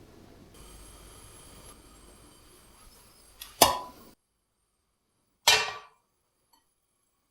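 Two sharp metallic clanks about two seconds apart, the first with a brief ringing tone; the low background noise cuts out right after the first.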